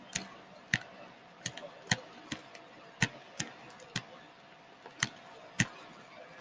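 Stylus tip tapping and clicking against a writing tablet while handwriting: sharp, irregular clicks, about two a second.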